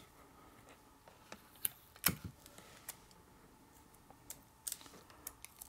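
Scattered light clicks and taps of fingers pressing and working a plastic screen protector on a camera's rear screen and body, the loudest about two seconds in.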